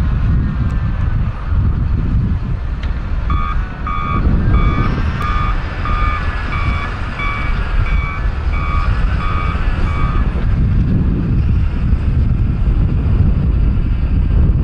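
A vehicle's reversing alarm beeping about twice a second, starting about three seconds in and stopping about ten seconds in, over a steady, loud low rumble.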